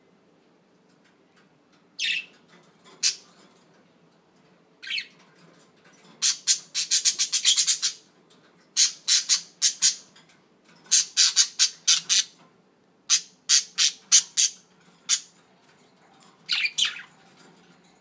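Budgerigar squawking: a few single sharp calls, then quick runs of several calls at a time with short pauses between, the longest run about two seconds long in the middle.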